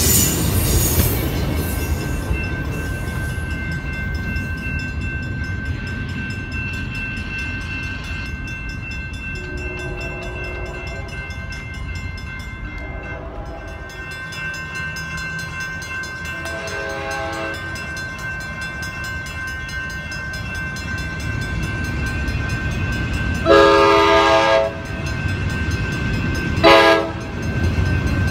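Bilevel commuter train cars rumbling past and fading away. Then an approaching Amtrak Pacific Surfliner sounds its horn, faint and far off at first, then loud near the end: a long blast followed by a short one, with another beginning as the train arrives.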